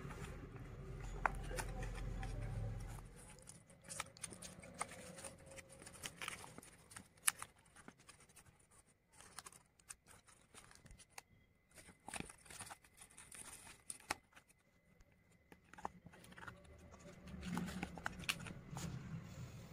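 Folded paper flaps being opened and handled: faint rustling and crinkling with scattered sharp clicks, and a low rumble at the start and again near the end.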